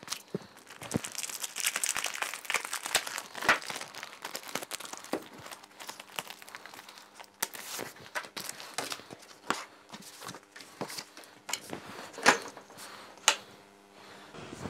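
Plastic wrapping on a pack of stiff A4 art card crinkling and tearing as the pack is opened and the sheets are pulled out and handled. The crackling is densest in the first half, then thins to scattered clicks, with a couple of sharper knocks near the end.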